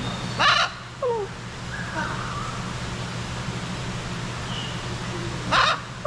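A parrot squawking twice, short harsh calls about five seconds apart, with a few softer short calls in between.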